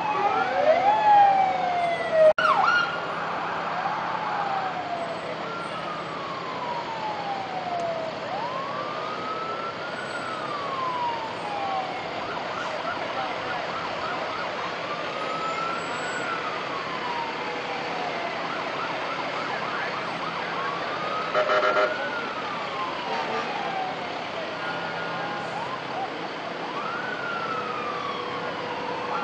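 Fire truck siren wailing, its pitch rising quickly and then falling slowly, repeating about every six seconds. Near the start several sirens overlap, with a sharp knock about two seconds in, and a short loud burst comes about two-thirds of the way through.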